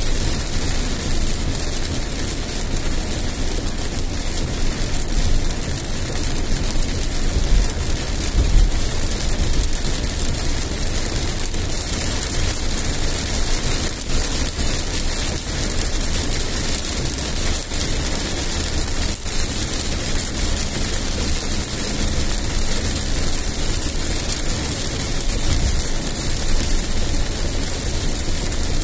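Heavy rain falling on a moving car's windscreen and body, heard from inside the cabin, with tyres on the wet road and a steady low rumble from the car underneath. The noise holds steady throughout.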